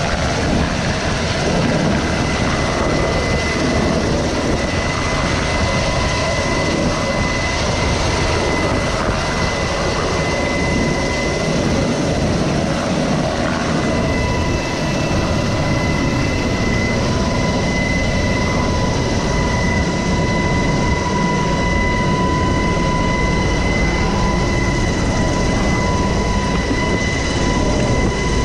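Helicopter turbine engines and rotor running steadily during a hoist rescue, a loud even rush with a steady high whine over it.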